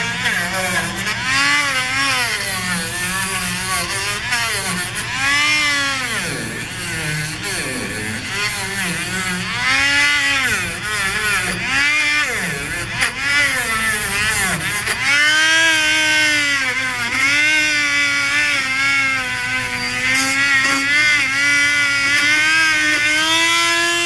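Rotary tool (Dremel-type) spinning a polishing wheel against the condenser's pipe fittings, cleaning them for soft solder. The motor runs continuously with a whine that rises and falls in pitch as the wheel is pressed on and eased off.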